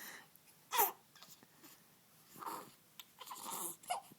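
Baby making a string of short vocal noises: a brief squeak that falls in pitch about a second in, then breathy grunts and straining sounds in the second half.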